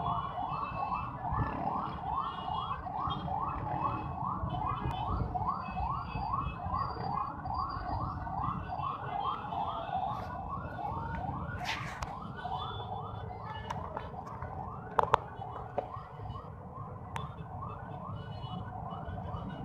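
Emergency vehicle siren in fast yelp mode, each rapid rising sweep repeating about two and a half times a second over a low city rumble, growing fainter in the second half.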